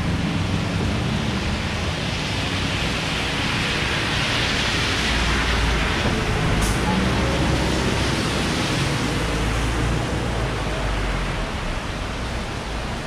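Heavy rain falling, a steady hiss with a low rumble underneath; the hiss swells for a few seconds around the middle.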